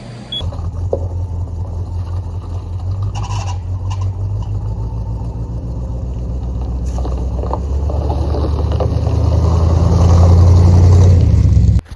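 Vehicle engine running with a low, steady hum that grows louder toward the end, then cuts off suddenly.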